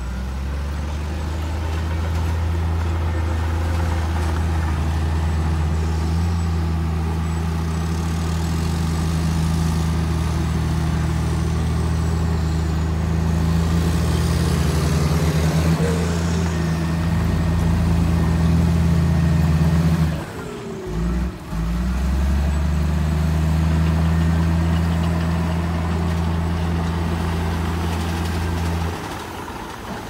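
Heavy diesel engine of earthmoving machinery running steadily at a constant speed. Its level dips sharply twice about two-thirds of the way in, then it picks back up, and it drops off again near the end.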